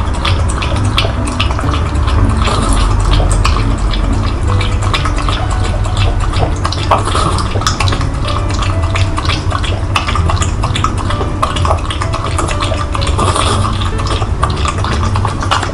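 French bulldog lapping liquid from a plastic cup, a rapid run of wet tongue slurps and clicks. A steady low rumble runs underneath.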